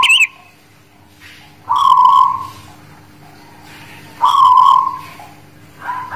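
Zebra dove (perkutut) of the local Guling Murio type singing in its cage: loud cooing notes repeating about every two and a half seconds, with a fresh call starting near the end.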